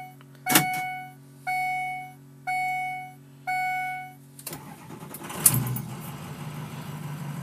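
A dashboard warning chime dings four times about a second apart, then the 6.0-litre Power Stroke V8 turbo-diesel cranks and starts about four and a half seconds in and settles into a steady idle.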